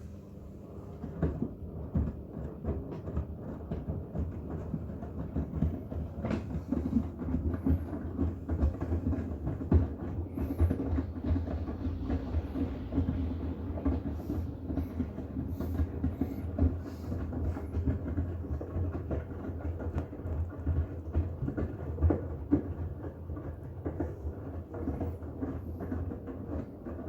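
Miele WCR 870 front-loading washing machine tumbling wet bath towels on its Cotton wash: the drum turns with water sloshing and a dense run of irregular thuds and knocks over a low rumble. The tumbling picks up about a second in and eases near the end.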